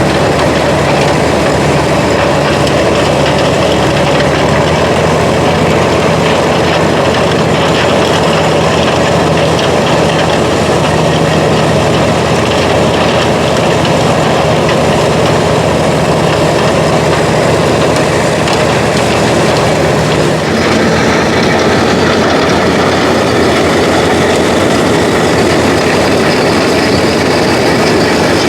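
Engine-driven farm machinery running steadily: an engine note under a continuous clatter, the engine note shifting higher about two-thirds of the way through.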